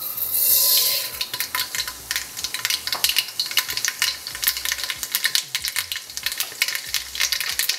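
Black mustard seeds frying in hot vegetable oil in a wok: a loud burst of sizzling as they hit the oil in the first second, then steady sizzling with rapid crackling pops as the seeds start to burst.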